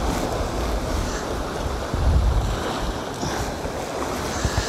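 Sea surf washing and breaking against shoreline rocks, with gusts of wind buffeting the microphone in low rumbles.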